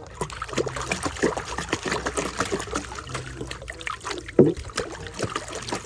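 Water splashing and sloshing as a muddy toy is washed and scrubbed, an irregular patter of small splashes, with a louder thump about four and a half seconds in.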